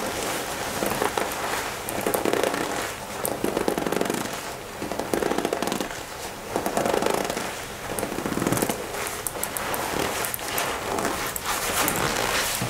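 Black leather jacket squeezed and crumpled in the hands close to the microphone, giving a dense crackling creak that swells and fades about once a second.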